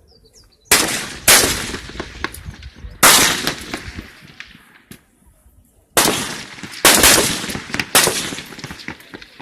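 Six full-bore rifle shots at a 300 m range, fired at uneven intervals, some coming close together, each followed by a long echoing decay.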